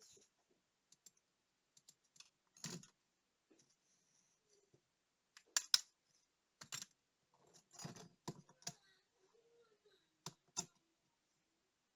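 Scattered small, sharp clicks and taps of tools and tiny parts being handled while a Soviet 'Montana' digital wristwatch is worked on, spaced irregularly with a louder cluster a little over halfway through.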